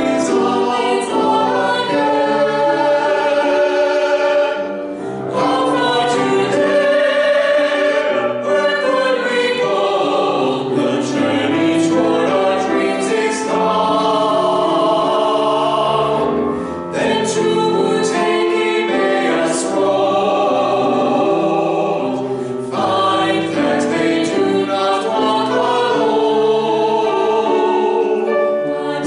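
Mixed vocal quartet of two women and two men singing a choral piece in parts, with short breaks between phrases.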